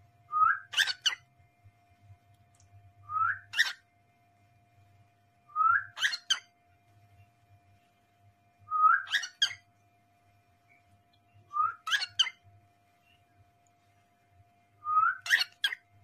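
Cockatiel repeating the same short whistled call six times, about every three seconds: a brief rising note followed by two or three sharp chirps.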